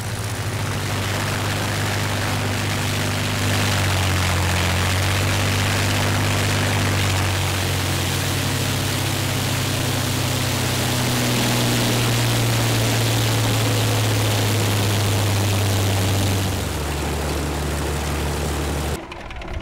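Supermarine Spitfire's Rolls-Royce Merlin V12 engine running on the ground during a run-up, propeller turning, power set by the throttle. It gets louder a few seconds in, rises a little in pitch midway, then drops to a lower, slower note near the end before cutting off abruptly.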